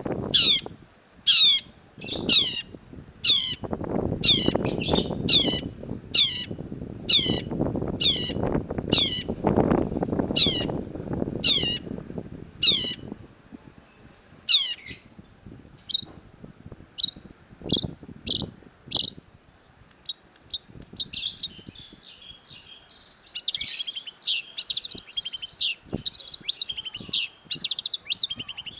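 Long-tailed shrike calling: a run of sharp, high, downward-sliding calls about two a second, thinning out around halfway through, then breaking into a fast, jumbled chattering song for the last third.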